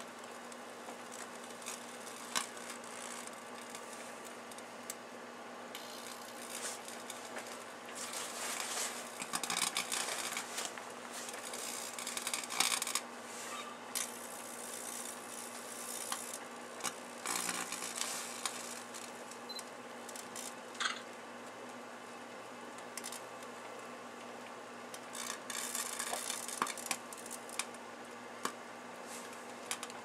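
Two microwave ovens running with a steady hum while strings of Christmas lights inside them arc, giving irregular crackling and sharp snaps, with thicker flurries of crackle about a third of the way in and again near the end.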